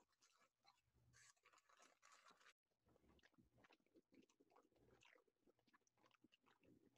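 Near silence, with faint crinkling and rustling of packing paper as items are unwrapped by hand.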